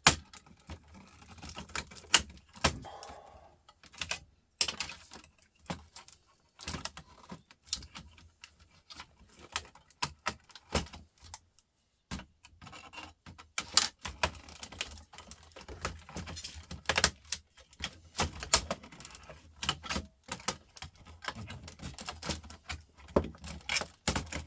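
Irregular clicks, snaps and rattles of small plastic and metal laptop parts and hand tools as a laptop is pried apart and stripped by hand. There are brief pauses about four seconds and twelve seconds in.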